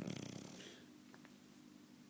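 French bulldog snoring: a rattling snore fades out over the first half-second, leaving a faint steady hum.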